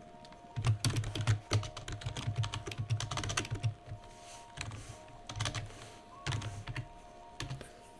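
Typing on a computer keyboard in bursts of rapid keystrokes: a long run over the first three seconds or so, then shorter runs broken by pauses.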